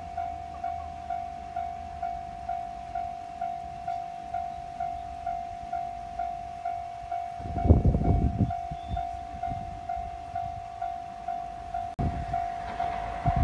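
Japanese level-crossing warning alarm ringing its steady 'kan-kan' strokes, about two and a half a second. About halfway through a JR 719 series electric train passes over the crossing, its wheels rumbling and clattering over the rail joints, and the rumble picks up again near the end.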